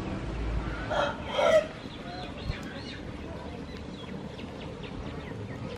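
A chicken calls once, briefly, about a second in, followed by fainter short calls over a steady outdoor background.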